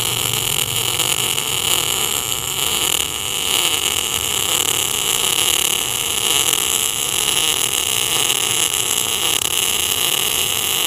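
MIG welding arc from a Tenya NBC-288 welder burning ER70S-6 wire under CO2 shielding gas as a bead is laid with a backhand (pull) technique. It makes a continuous, even hiss.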